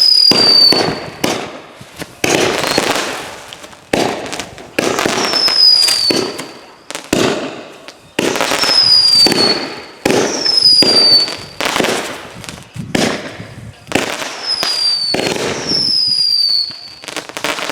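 A consumer firework firing a long series of shots, about one a second, each a sharp bang that fades out over a second or so. Several shots carry a high whistle that falls slightly in pitch.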